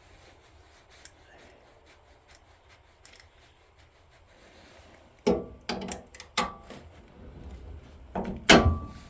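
Sharp metal knocks on a snowblower auger shaft, a tool striking at a shear bolt that is stuck fast. They come in two bursts, a little past halfway and near the end, and some leave a short ring.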